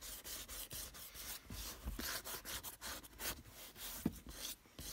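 Fine 240-grit sandpaper rubbed by hand over dried filler on a synthetic-leather car seat, in repeated short strokes about three a second: the fine levelling stage that smooths out the scratches left by coarser 80-grit paper.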